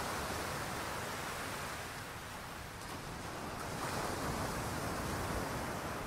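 Ocean waves washing on a shore: a steady rushing that eases off about two seconds in and swells again about four seconds in.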